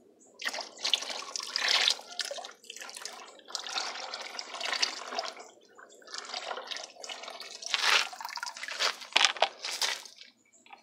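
Caustic soda (lye) solution being poured into a bucket of used cooking oil, splashing into the oil in uneven surges with a few brief breaks. This is the lye going into the oil for homemade bar soap.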